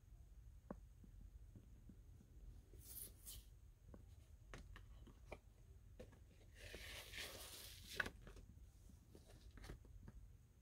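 Faint handling sounds as a vinyl LP and its glossy paper insert are lifted and moved: scattered light taps, and a papery rustle about two-thirds of the way through that ends in a sharper tap.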